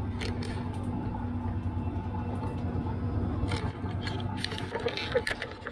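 Steady hum and rumble of a blacksmith's forge fire, with scattered light metallic clinks and knocks in the second half.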